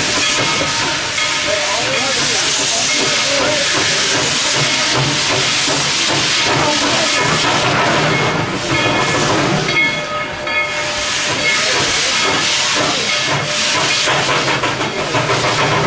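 Narrow-gauge steam locomotive No. 190 venting steam: a steady, loud hiss, with faint high tones coming and going over it.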